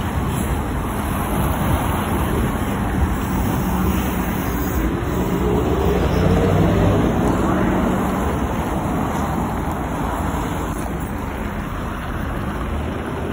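ZiU-682G trolleybus pulling away from a stop: its traction motor whine rises in pitch about five seconds in. Street traffic runs underneath.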